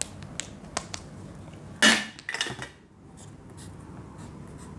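Marker on a whiteboard: a few light taps and clicks, then two short scratchy strokes about two seconds in.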